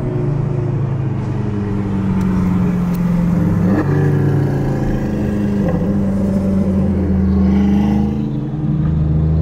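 Car engine heard from inside the cabin while cruising: a steady drone whose pitch shifts up and down a few times, with a quick rise in revs about four seconds in.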